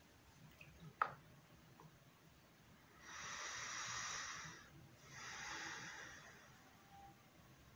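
Two long breaths through the nose, each about a second and a half, with a short gap between them. A single sharp click sounds about a second before them.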